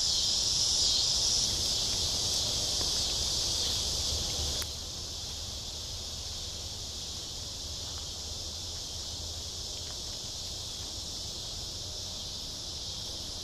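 Steady high-pitched chorus of crickets and other evening insects, dropping to a quieter level about four and a half seconds in.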